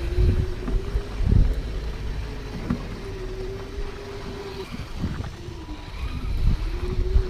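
Electric motor and drivetrain of an RC rock crawler whining at a steady pitch as it creeps over rock, cutting out and starting again several times. Low thumps and rumbles are mixed in.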